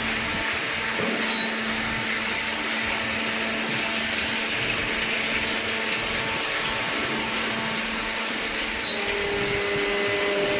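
Small hydraulic cardboard baler running: a steady mechanical hum of its motor and hydraulic pump, with a few held tones. A higher tone comes in near the end.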